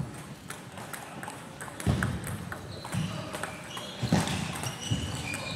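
Table tennis ball clicking off the bats and the table in a rally, with heavier thuds and short squeaks from the players' feet on the hall floor.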